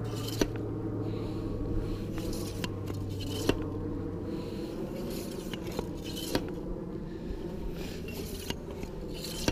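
Light scraping and a few sharp clicks as a lugworm bait pump and bare hands work through pumped-up wet sand. A low steady hum sits underneath through the first half.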